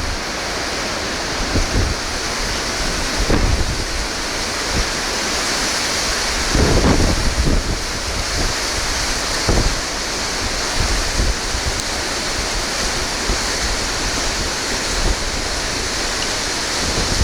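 Strong wind off the sea buffeting the microphone in low gusts over the steady rush of breaking surf, with a heavier gust about seven seconds in.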